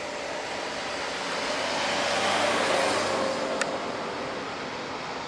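An EH500 twin-section electric locomotive approaching with its freight train: a steady rumble with a faint humming tone. A rush of noise swells and fades in the middle, and there is one sharp click about three and a half seconds in.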